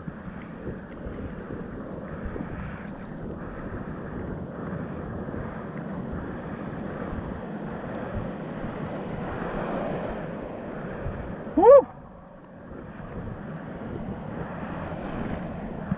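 Broken surf foaming and washing around a camera held at water level, with wind on the microphone. About twelve seconds in comes a short rising squeal, the loudest moment, and then the sound turns briefly duller and quieter.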